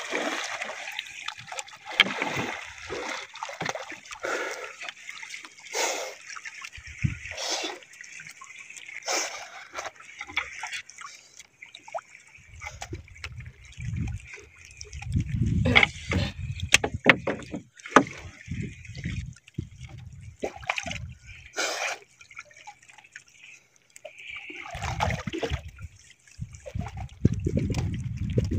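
Water splashing and trickling in irregular bursts, with stretches of low rumbling about halfway through and again near the end.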